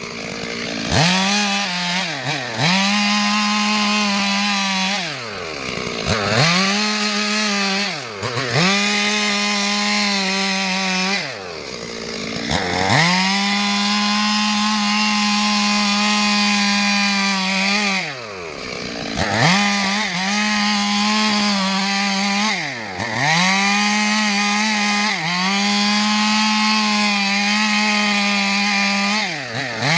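Stihl two-stroke chainsaw running at high speed while cutting wood. Its pitch drops sharply and climbs back about eight times as the engine speed falls and recovers.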